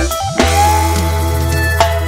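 Background pop music: guitar lines over a low bass note that is held from about half a second in.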